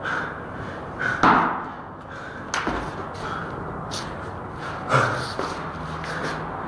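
Sneakers stepping and thudding on stone stairs and a hard landing, several sharp knocks with two louder thuds, one about a second in and one about five seconds in.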